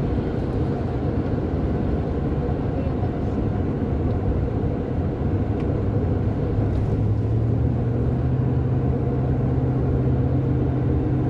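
Steady low rumble of road and engine noise inside a moving car. A steady low hum comes in about halfway through.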